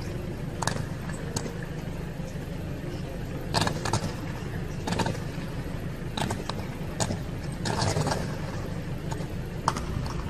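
Electrical arc at a high-voltage substation: a steady low hum with sharp crackling snaps at irregular moments, from a live fault arcing and burning among the switchgear.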